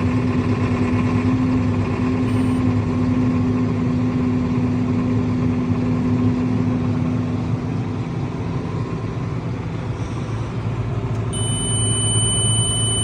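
Case IH Magnum 260 tractor's six-cylinder diesel running at a steady idle just after a frosty cold start. Near the end a steady high-pitched electronic tone starts and keeps going.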